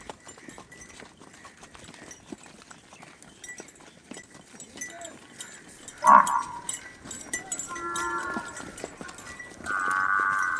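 Water buffalo lowing: a sharp, loud call about six seconds in, then a drawn-out moo near eight seconds and a louder, longer one near the end, over faint scattered clicks.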